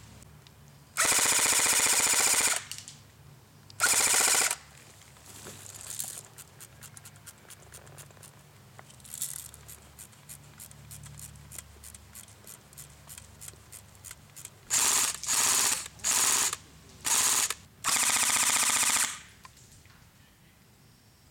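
ICS L86A2 electric airsoft gun firing full-auto bursts: one long burst about a second in, a short one a few seconds later, then five short bursts in quick succession near the end. Fainter scattered clicks between the bursts.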